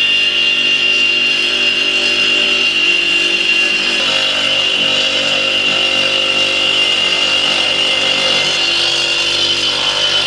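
Electric brick-cutting saw running steadily, with a high whine, as a refractory brick is cut to an angle.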